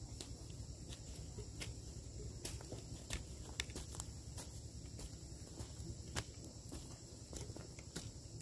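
Footsteps on dry, burned hillside soil and irregular sharp taps of bamboo dibble sticks jabbed into the ground to make planting holes for upland rice, with a steady high insect buzz behind.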